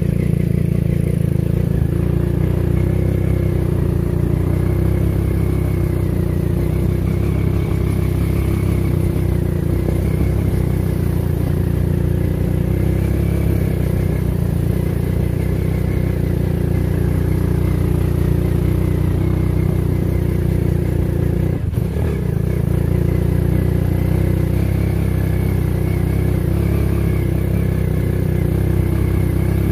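Old motorcycle engine of a homemade four-wheel-drive ATV running steadily as the vehicle is driven, with a brief dip and a knock about two-thirds of the way through.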